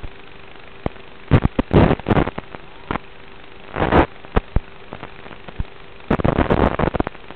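Flight audio of a Diatone GTR M548 5-inch FPV quadcopter: a steady hiss and hum broken by loud, irregular bursts of rushing, crackling noise. The bursts come in a cluster about a second and a half in, again around four seconds, and in a dense run from about six seconds.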